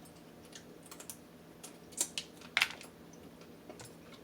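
Crab shell being cracked and picked apart by hand: scattered small clicks, with two louder sharp cracks about two seconds in.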